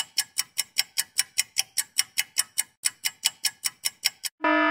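Quiz countdown-timer sound effect ticking evenly, about four ticks a second. Near the end a buzzer tone sounds as the countdown runs out.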